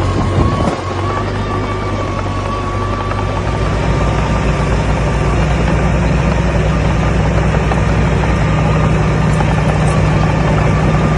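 Komatsu D21A bulldozer's diesel engine running steadily, its low drone growing louder about three seconds in as it works harder, with a thin steady whine above it.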